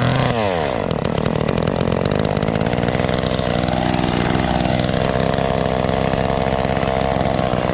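Old two-stroke chainsaw engine running after a carburetor rebuild, dropping back from a rev at the start and then idling, with a brief rise and fall in speed about four seconds in. It is not running quite right: the carburetor's high and low mixture screws still need adjusting.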